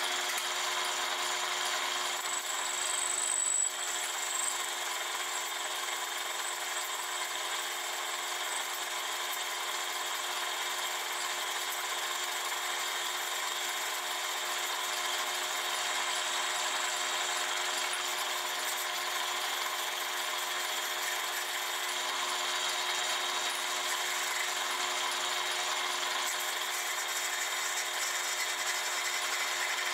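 Metal lathe running steadily while a cutting tool turns a naval brass gear blank: a steady cutting noise over the machine's running hum. A brief high whine comes about three seconds in and stops suddenly.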